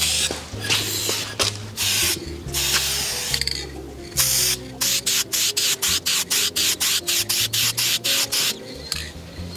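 Aerosol can of high-temperature black paint spraying in hissing bursts: a few longer sprays, then from about halfway a quick run of short bursts, about four a second.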